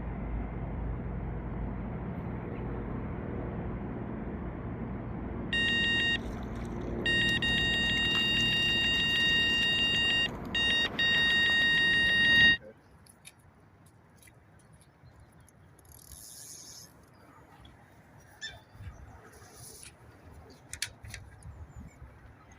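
Electronic carp bite alarm sounding a single steady high tone, a short beep and then long near-continuous stretches with brief breaks, as a carp takes line on a run. It plays over a low rumble, and both cut off abruptly about twelve and a half seconds in.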